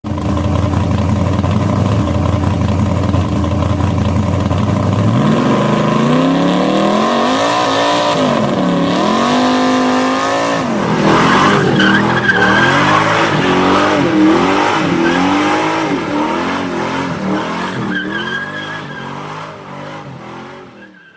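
A car engine idles steadily, then from about five seconds in is revved up and down over and over, and the sound fades out at the end.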